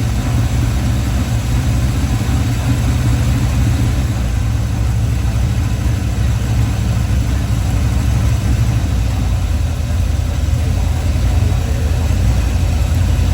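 Chevrolet 350 small-block V8 in a box Chevy running steadily, a heavy low engine sound with no revving.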